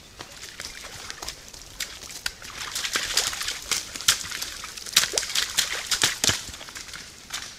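Deer splashing and scrambling through a mud puddle: wet slaps and sloshing of hooves and bodies in the mud, a quick run of sharp splashes that is thickest from about three to six seconds in.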